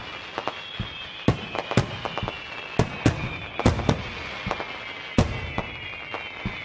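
Fireworks going off: irregular sharp bangs, about two a second, over a steady high crackle.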